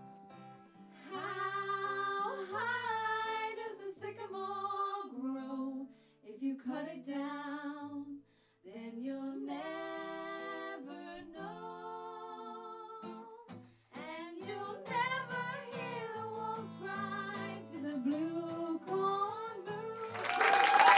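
A woman singing to an acoustic guitar, holding long notes with vibrato. Audience applause breaks in near the end.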